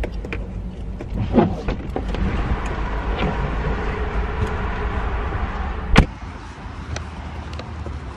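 A car door shuts with one loud, sharp thud about six seconds in, after several seconds of steady noise from the car, and everything is quieter afterwards.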